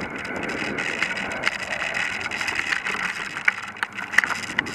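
Bicycle riding over a rough forest dirt trail: steady rolling and rattling noise, with several sharp knocks from bumps in the second half.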